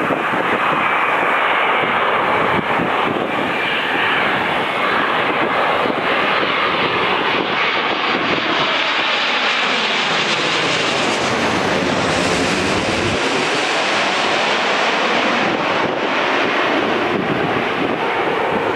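Boeing 787-9 Dreamliner's GEnx-1B turbofans as the airliner flies low overhead on final approach with its landing gear down: steady, loud jet noise. About ten seconds in, as it passes directly overhead, the sound turns brighter and takes on a sweeping, phasing quality, then it begins to draw away.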